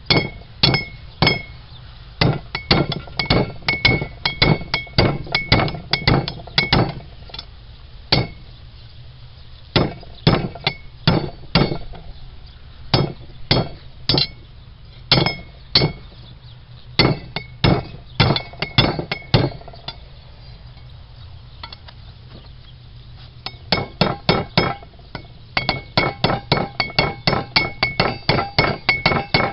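Hand hammer striking red-hot rebar on an anvil, upsetting the end of the bar: runs of sharp metallic blows, about two to three a second, each with a ringing note. There are short pauses between runs and a longer pause about two-thirds of the way through.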